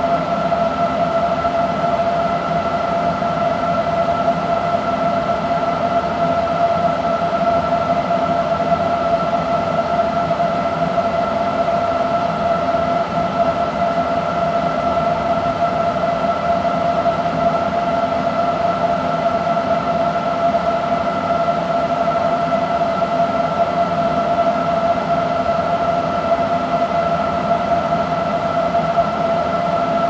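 Electric-vehicle quick charger running during a charge: a steady high-pitched electrical whine over a low hum, unchanging throughout.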